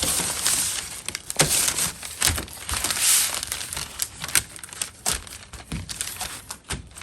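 Paper and plastic crinkling and rustling, with many sharp crackles, as a sticker and its wrapping are handled.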